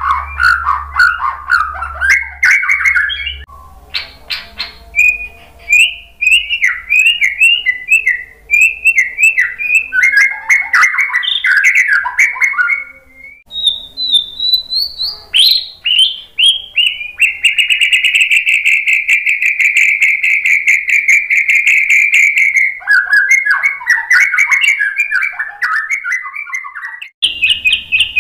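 White-rumped shama singing a long, varied song of fast whistled phrases and trills, with a steady buzzy rattle held for about five seconds past the middle before the whistled phrases resume.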